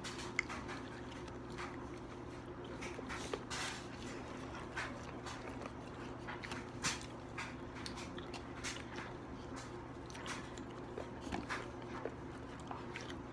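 Two people eating chicken: scattered short chewing and biting sounds over a low steady hum.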